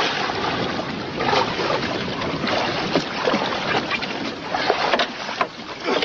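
Sea water sloshing and splashing against the side of a small boat as a scuba diver swims up to it, with wind on the microphone and a few short knocks and splashes.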